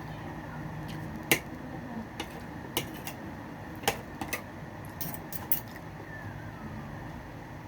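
Eating utensils clinking against a plate: about eight sharp, scattered clicks, the loudest about a second in, over steady background noise.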